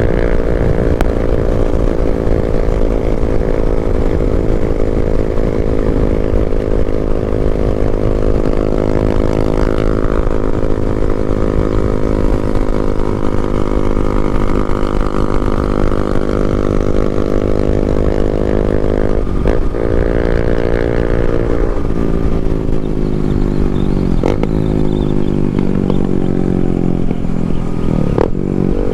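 Yamaha MT-07 parallel-twin motorcycle engine running under way, its pitch easing slowly down at first, then breaking into several quick dips and steps in the second half as the gears and throttle change. Wind rumbles on the microphone throughout.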